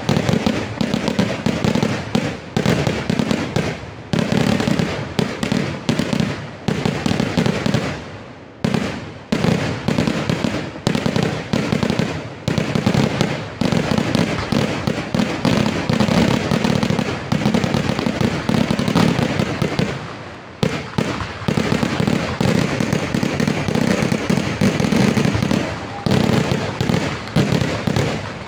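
Kerala temple-festival fireworks (vedikettu) going off in a rapid, almost unbroken barrage of loud bangs, many a second. The barrage slackens briefly about a third of the way in and again about two-thirds in.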